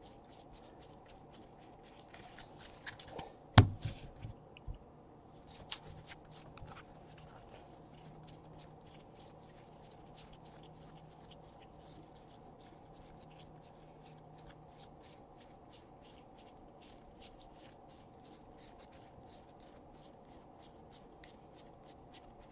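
Baseball trading cards flicked one after another as a stack is thumbed through by hand, a steady run of light ticks. A single louder knock comes about three and a half seconds in.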